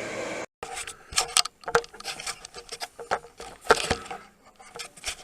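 A steady rushing noise stops abruptly about half a second in. Irregular clicks and knocks of objects being handled follow, with some rubbing, and the loudest knock comes a little under four seconds in.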